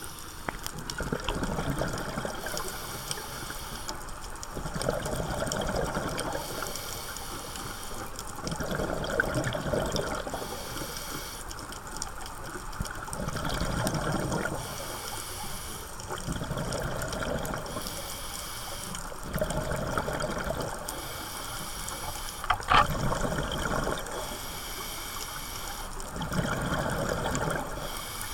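Scuba diver breathing through a regulator underwater: a hissing inhale followed by a rush of exhaled bubbles, the cycle repeating about every four seconds. One sharp click late on.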